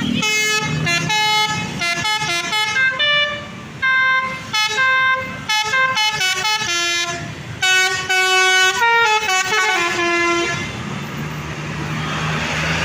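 Tour bus telolet horn playing a quick tune of separate pitched notes in several runs, with short breaks between them. The tune stops about ten seconds in, leaving a steady low engine hum.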